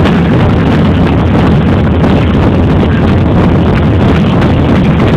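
Football stadium crowd noise: a loud, steady din from the stands, near full scale and overloading the phone microphone.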